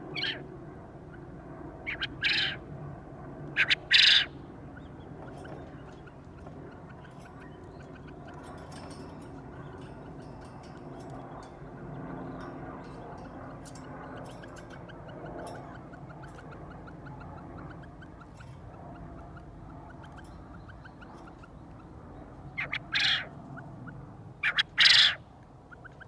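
Male Japanese quail crowing: loud, short, high calls in quick groups in the first four seconds, then a long stretch of faint outdoor background, then two more calls near the end.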